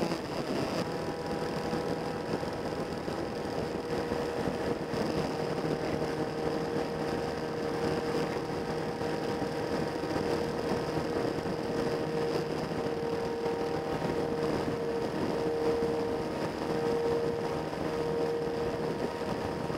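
Motorcycle engine running at a steady cruising speed on an expressway, its drone holding an even pitch under a constant rush of wind and road noise.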